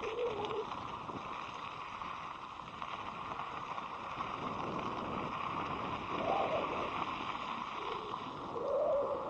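Steady rushing wind and ride noise on a helmet-mounted action camera's microphone during an electric scooter ride, with a few brief higher-pitched sounds about six and nine seconds in.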